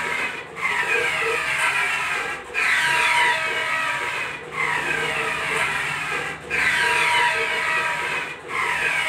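Large-format inkjet printer printing a banner: the print-head carriage sweeps across the media with a whine that falls in pitch and a steady tone. It makes about one pass every two seconds, with a brief pause at each turn as the carriage reverses and the banner steps forward.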